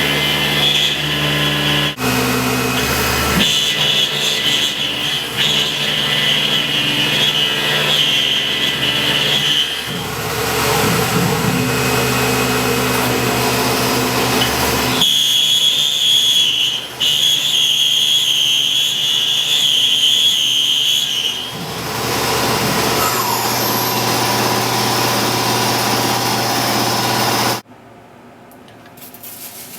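Tormach PCNC 1100 CNC mill running a 1/4-inch two-flute high-speed steel end mill through 6061 aluminum at about 4,000 RPM: a steady, loud cutting whine that changes pitch and character abruptly several times as the passes change. It stops about 28 s in, leaving a faint background. The machinist thinks it may have been a little bit of an aggressive cut.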